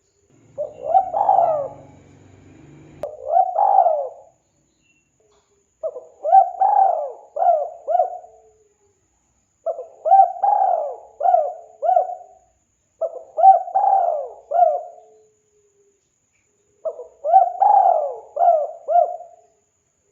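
Spotted dove (tekukur) cooing: six phrases of three or four short coos each, repeated every three to four seconds.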